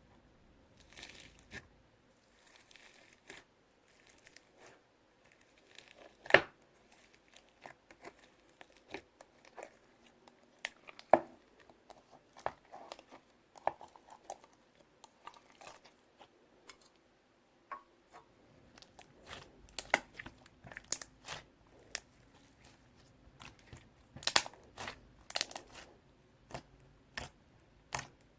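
Slime being squeezed and worked by hand, making irregular crackling, crunching pops. Two sharp, louder pops come about six and eleven seconds in, and the crackling grows denser and louder in the last third.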